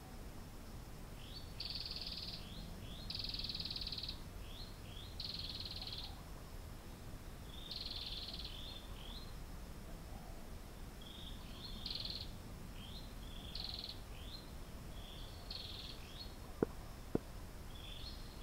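An animal calling: runs of high chirps, each led by a few quick short chirps, repeating about every two seconds over a low steady background noise. Two sharp clicks about half a second apart near the end are the loudest sounds.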